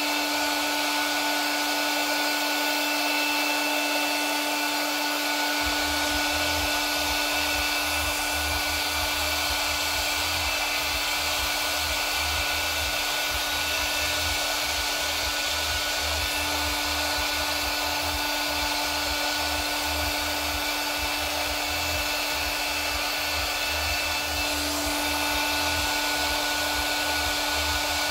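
Electric blower running steadily: a whoosh of air with a steady motor whine. A low fluttering rumble joins about six seconds in.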